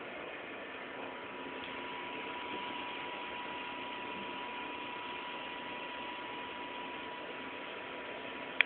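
Steady hiss of recording noise with a faint, steady high tone from about a second in. There is one sharp click near the end.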